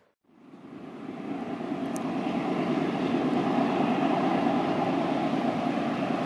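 Diesel freight locomotives approaching, their engine rumble fading up from near silence and building to a steady level over the first three seconds.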